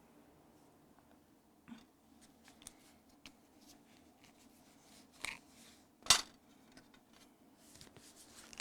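Scattered small clicks and taps from objects being handled, the loudest a sharp click about six seconds in.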